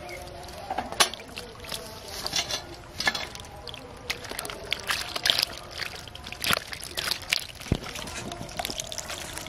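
Small live fish flapping and splashing in a plastic basin of shallow water as they are emptied from a hand net and handled, with irregular wet slaps and sloshes.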